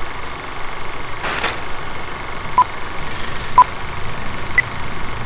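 Film-leader countdown sound effect: a steady film-projector whir and crackle, with a short whoosh about a second in. Then three short beeps come about a second apart, two at one pitch and a higher third near the end.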